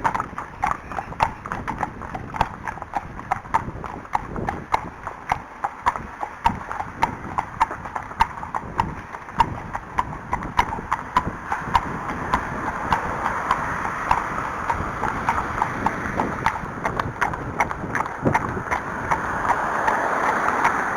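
Horses' hooves clip-clopping at a walk on a hard, stony track, about two to three steps a second. A rushing hiss builds through the second half and is loudest near the end.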